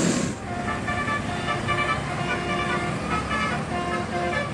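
Indonesian tour bus 'telolet' musical horn playing a quick melody of short notes that step up and down in pitch, over a low rumble. A loud rush of noise breaks off just after the start.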